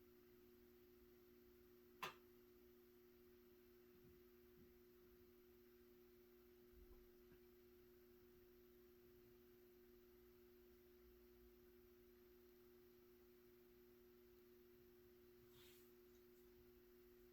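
Near silence: the faint, steady hum of a 1985 Sears ceiling fan's 153mm spinner motor running on medium speed, with no bearing noise. A single sharp click about two seconds in.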